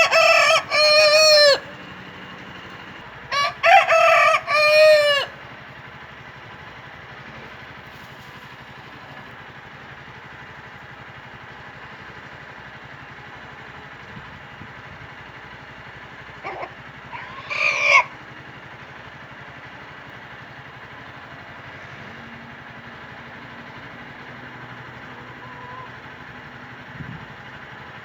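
Rooster crowing: two long crows in quick succession, each about two seconds, then a shorter call about 17 seconds in, over a steady background hiss.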